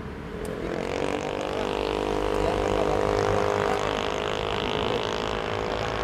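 Motorcycle engine running close by, its pitch rising slightly about half a second in and then holding steady.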